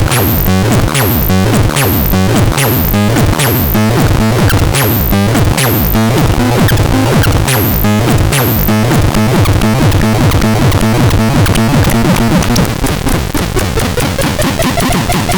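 DAZAX synthesizer playing a loud, noisy electronic pattern: a steady low bass tone under a fast pulsing sequence, with repeated sharp high zaps. About twelve seconds in, the zaps stop and the pattern turns denser and faster.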